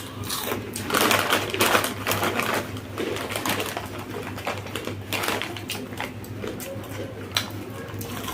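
Close crackling and rapid irregular clicking of crunchy snacks being eaten and their packet handled, loudest about a second in, over a steady low hum.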